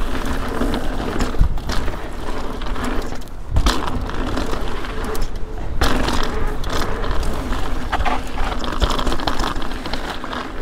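Ibis Ripmo mountain bike's tyres rolling over a dirt singletrack, a steady rushing noise with a few sharp knocks and rattles as the bike hits bumps.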